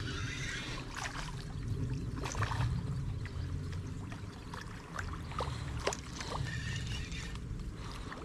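Small splashes and water sloshing from a hooked chub being played near the river's surface, heard as scattered short clicks and splashes over a steady low rumble.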